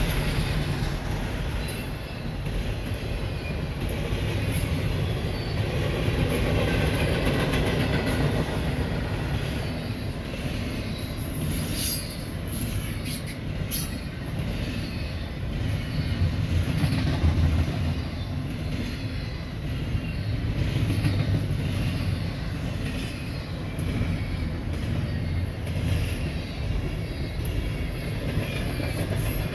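Freight train rolling past, a steady rumble of cars on the rails with clicking of wheels over rail joints, sharpest around halfway through.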